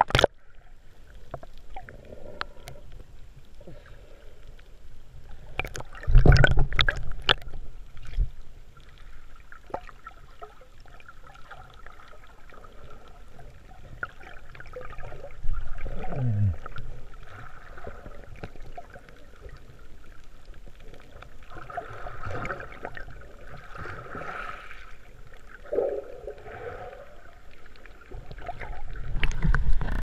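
Water sloshing and gurgling around a camera held at and below the sea surface, with splashes and knocks. The loudest burst comes about six seconds in.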